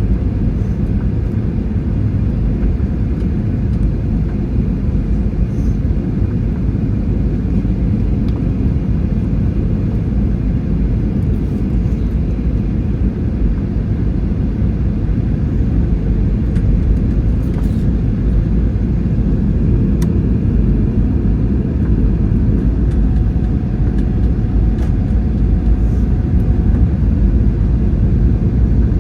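Steady low rumble of airflow and jet engines inside an airliner's cabin on approach, growing slightly louder in the second half, with a few faint clicks.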